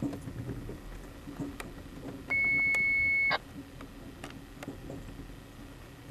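A single steady high beep about a second long, some two seconds in, with a click as it starts and stops, heard over a railroad radio scanner. Under it is a low steady rumble of the moving passenger train.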